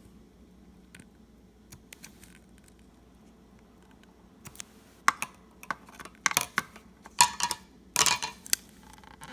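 Quiet for the first few seconds, then a run of sharp clicks and short rattles from small hard objects being handled, louder toward the end.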